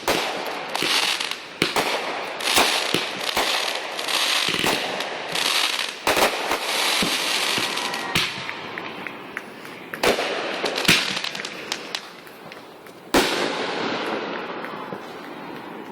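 Consumer fireworks going off: a rapid string of bangs and pops with crackling in between. Near the end one sharp bang is followed by crackling that dies away.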